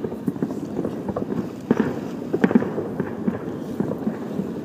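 Distant fireworks bursting in quick, irregular succession: a dense run of muffled pops and thuds, the strongest about two seconds in.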